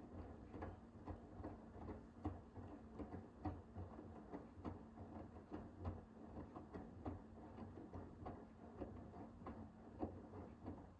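Hoover H-WASH 500 washing machine drum turning, tumbling wet laundry with irregular soft knocks and sloshes over a low motor hum. The hum cuts out near the end as the drum pauses.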